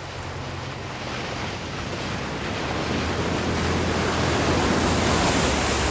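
Toyota 4Runner's V6 engine running with a steady low drone as the truck ploughs through deep muddy floodwater, over the rush and splash of the bow wave it pushes ahead. The water noise grows louder as the truck comes closer.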